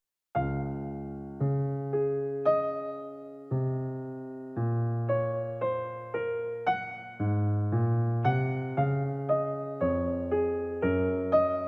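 Background music: after a brief gap a new piano piece starts, with notes and chords struck and left to ring, a new one about every half second to a second.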